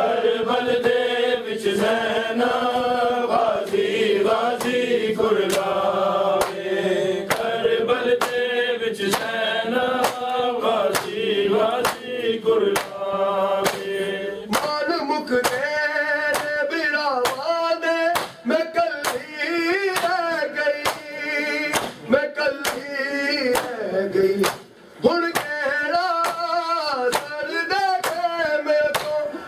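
Men's voices chanting a noha, a Shia mourning lament, over a steady beat of open hands striking bare chests (matam).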